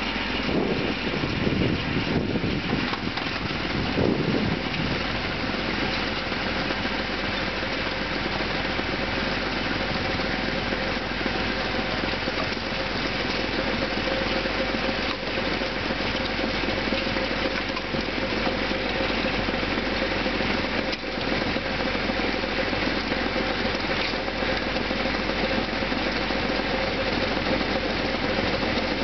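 Kubota B2400 compact tractor's diesel engine running steadily while driving a Lorenz 430 snowblower through a snowbank, with a few heavier surges in the first few seconds.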